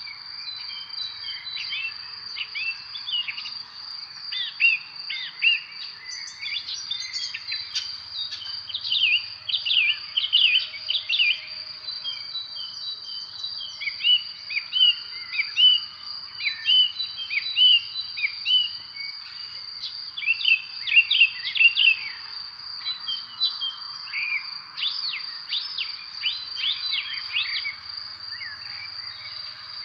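Many birds chirping in quick clusters of short, sharp notes that swell and ease off, over a steady high-pitched drone of insects such as crickets.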